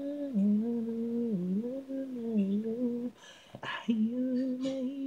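Unaccompanied male lead vocal singing a held, bending melody line with no instruments. It breaks off for a moment after about three seconds with a short breathy hiss, then carries on.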